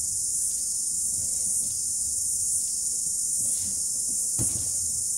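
Steady high-pitched chirring of an insect chorus. Under it come a few dull knocks from an empty plastic bin being handled, the clearest about four seconds in.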